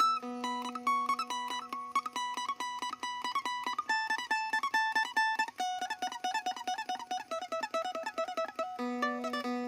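Acoustic phin, the Isan plucked lute, in a traditional-style body, played solo. It plays a quick picked melody of rapidly repeated notes over a ringing open-string drone, which sounds loudest at the start and again near the end. The tone is clear and resonant.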